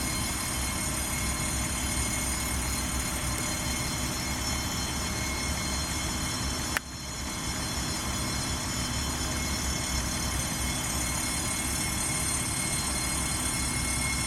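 Pierce Velocity fire engine under way, its Detroit Diesel Series 60 and road noise making a steady rumble with a hiss. There is one sharp click about seven seconds in.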